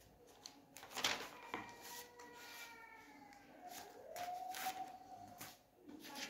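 A faint wailing tone that glides slowly down in pitch, then rises and holds for about a second and a half before fading. Scattered soft knocks and rustles run through it, with a sharp click about a second in.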